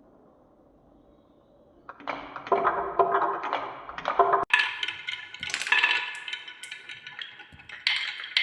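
Marbles running through a wooden marble run: a faint low rolling at first, then from about two seconds in, rapid clacking knocks with ringing pitched notes that turn higher about halfway through.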